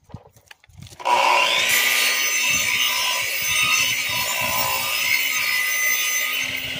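Sliding compound miter saw starting up about a second in, then its spinning blade cutting slowly through a block of old pine: a steady motor whine under a dense rasp of wood.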